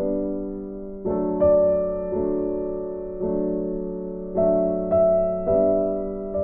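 Background music: soft piano chords, each struck and left to fade, with a new note or chord every half second to a second.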